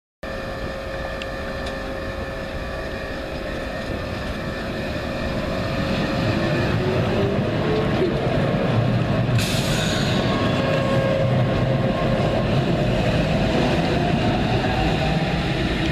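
Siemens-Duewag Supertram accelerating past at a platform: its traction motors give a whine that rises in pitch while the sound grows louder over the first few seconds. A short hiss comes about nine seconds in.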